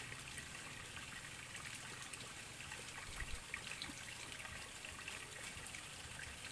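Faint, steady trickling water, with scattered small ticks and one low bump a little after three seconds.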